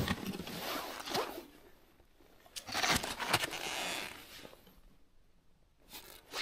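Rasping, rustling handling noise in two bursts, with a couple of sharp clicks about three seconds in, as clothing and ice-fishing gear are moved close to the microphone.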